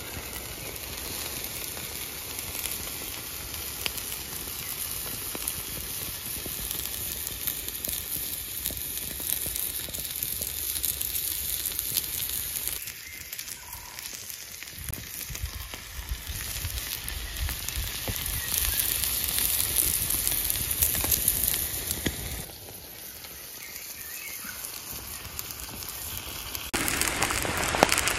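Steak, mushrooms and asparagus sizzling on a hot slate over an open wood fire, with the fire crackling underneath. The sizzle gets louder near the end.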